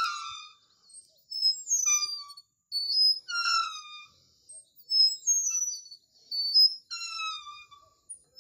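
Metal chain swing squeaking at its pivots as it swings back and forth. A short, high, slightly falling squeal comes with each stroke, about every two seconds.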